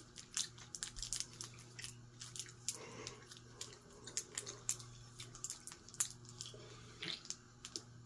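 Vintage Sears/Emerson 'Turn of the Century' ceiling fan with a KB55 motor running at a reduced speed on a capacitor speed rig. The motor gives a faint steady low hum, and many irregular small clicks and crackles sound over it.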